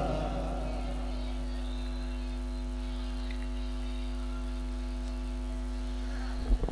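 Steady electrical mains hum from a microphone and public-address system in a pause of Quran recitation, with the echo of the reciter's voice fading away at the start. A couple of short soft knocks come near the end.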